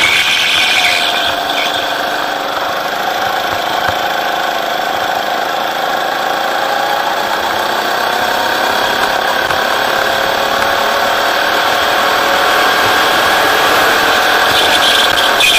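Rental go-kart's engine running under throttle, heard from the driver's seat. Its pitch dips a little about two seconds in, then climbs slowly.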